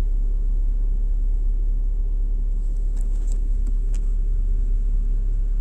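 Steady low rumble of a car, heard from inside the vehicle, with a few faint clicks about three to four seconds in.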